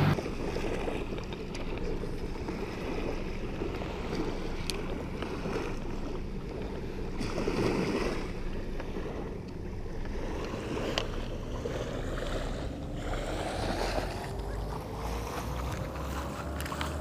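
Small waves lapping on a sandy shore, with wind on the microphone. In the second half a faint hum rises slowly and steadily in pitch.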